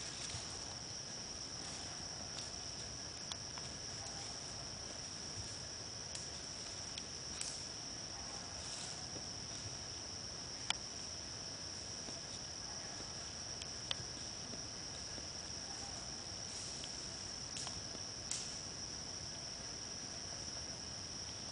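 Night insects trilling: one steady, continuous high-pitched note, with scattered faint clicks and a sharper click at the very end.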